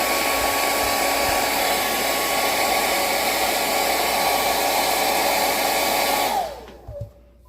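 Hair dryer blowing on high, a steady rush of air with a steady motor whine, heating thick old glue to soften it. It is switched off about six seconds in, the whine falling away as the motor spins down, and a small knock follows.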